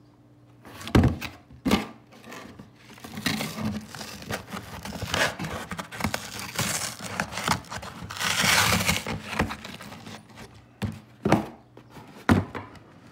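A cardboard shipping box being handled: rustling and scraping of the cardboard, with a few sharp knocks as it is moved and set against the table, twice near the start and twice near the end.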